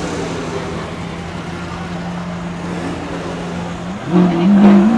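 Car engine idling with a steady drone, then revved in a few quick blips about four seconds in, the pitch rising and falling with each rev.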